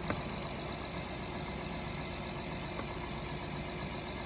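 2010 Acura's engine idling, with a fast, even, high-pitched pulsing over a low rumble and two faint clicks. The air-conditioning compressor is not kicking on.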